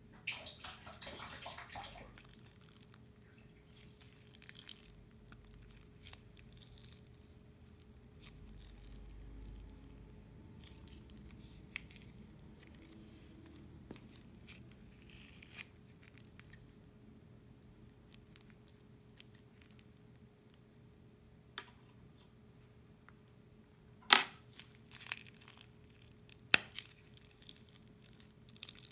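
Plastic piping bag crinkling as it is squeezed, with thick glue squishing out. Later come a few sharp clicks and more crinkling, the loudest click about three quarters of the way through.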